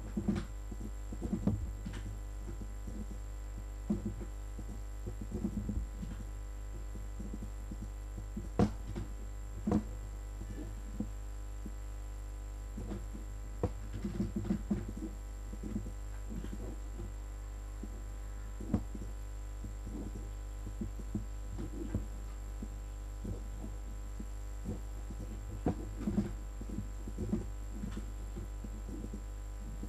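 Steady low electrical hum with a row of overtones, broken by scattered faint clicks and small knocks, a couple of them louder about nine and ten seconds in.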